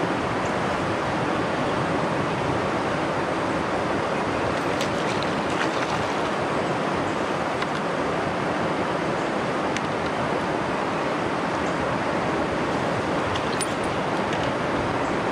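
Steady rushing noise of moving river water, with a few faint clicks scattered through it.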